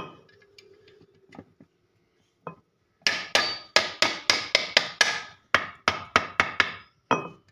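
Small club hammer striking the metal head of an AR RK-15-20H high-pressure piston pump to tap it down and seat it on the crankcase. After a couple of light taps, a quick run of sharp metal strikes comes at about four a second.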